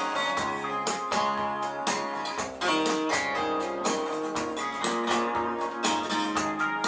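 Recorded music played back over a home hi-fi system's loudspeakers: acoustic guitar picking a run of quick plucked notes, with no voice.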